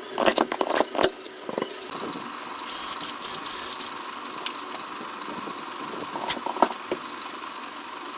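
Bare copper wires being handled and twisted, giving a cluster of sharp clicks and knocks in the first second and a couple more about six seconds in, over a steady background hiss.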